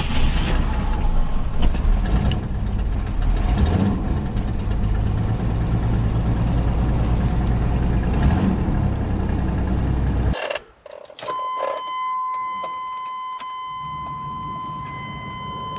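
Chevy Blazer engine running just after a cold start in freezing weather, a steady low mechanical noise. About ten seconds in it cuts off abruptly. After a few clicks, a steady high warning chime tone sounds, the truck's door or key chime.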